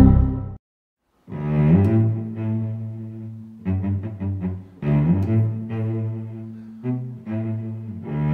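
Background music of low bowed strings, cello or double bass, playing long held notes in short phrases. It comes in after a brief loud sound at the very start and a moment of silence.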